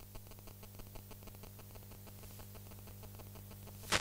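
Quiet background of a steady low electrical hum with light static and faint ticking, and one sharp click near the end.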